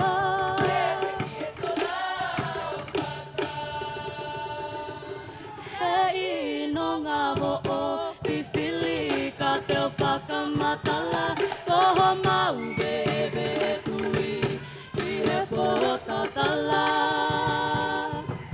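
A choir of young women singing a Pacific Island song in harmony, with held and swooping notes, over a steady beat of live drum percussion.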